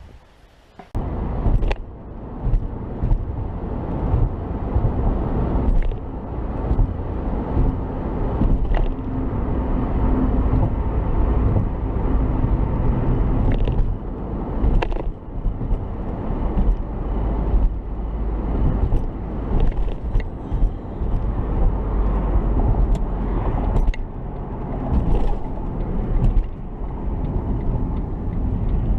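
A car driving along: a steady low road and engine rumble that starts about a second in, with scattered small knocks and rattles.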